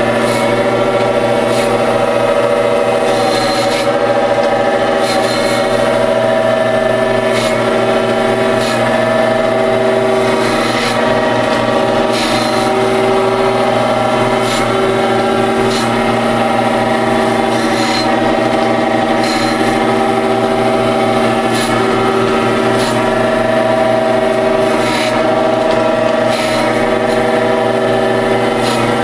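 1935 Gallmeyer & Livingston No. 35 surface grinder grinding the steel face of an anvil: a steady electric motor hum under the gritty hiss of the abrasive wheel on the steel, which swells every second or two.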